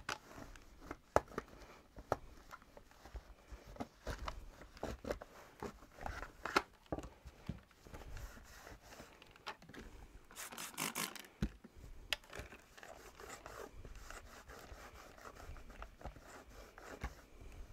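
Hand cleaning of a cordless stick vacuum's plastic parts: irregular scraping and rubbing with small clicks and knocks of handling. A louder, hissing rasp lasts about a second, a little past the halfway point.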